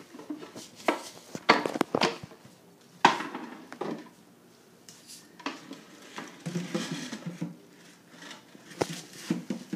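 Folding wooden frames being handled and set down on a tile floor: several sharp wooden clacks and knocks in the first few seconds, then softer scraping and shuffling as they are pushed into place.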